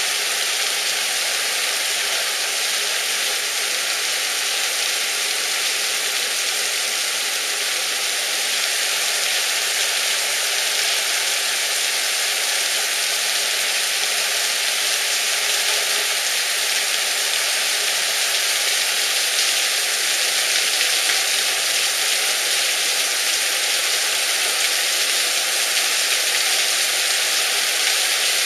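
Torrential rain pouring down steadily on a street: an even, unbroken hiss with no let-up.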